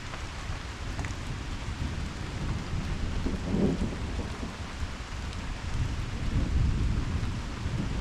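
Steady rain with rolling thunder rumbling low beneath it, the rumble swelling about three and a half seconds in and again near the end.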